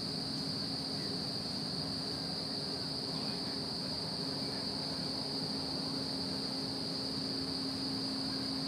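Crickets chirring in the field: one continuous high-pitched drone that holds steady throughout, with a faint low hum beneath it.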